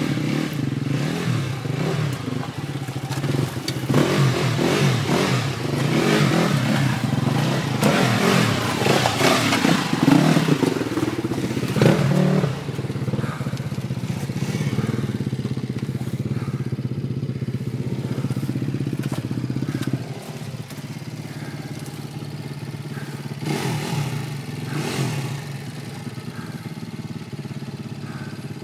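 KTM enduro dirt bike engines running at low revs, with throttle blips, as the bikes pick their way down stepped rock slabs. Tyres and chassis clatter and knock over the rock, most thickly through the middle. The engine sound drops suddenly about twenty seconds in, and a quieter engine runs on.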